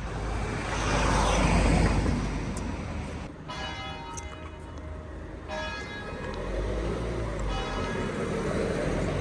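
Street traffic with a vehicle passing, loudest a second or two in, then bells ringing in two stretches that start and cut off abruptly.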